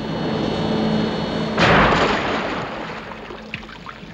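Sound effects of the Thunderbird 4 submarine launching into the sea: a steady engine hum, then a sudden loud rushing splash about one and a half seconds in that dies away over the next two seconds.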